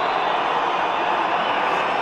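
Stadium crowd noise, a steady, loud din from a large rugby crowd during a haka.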